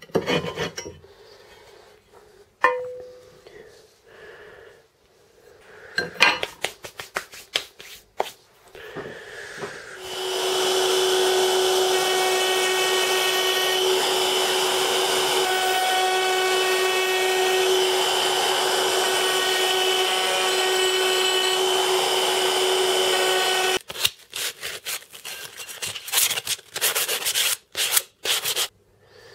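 Knocking and clattering as work is handled. Then a table-mounted router runs steadily with a constant hum for about fourteen seconds, starting about ten seconds in, while a workpiece is moved past it. After it stops there are more sharp clicks and knocks.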